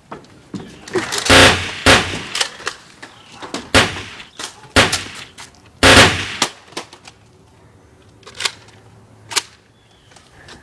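A run of loud, sharp gunshot-like bangs, about seven, irregularly spaced, with smaller clicks between; the loudest come about a second and a half in and about six seconds in.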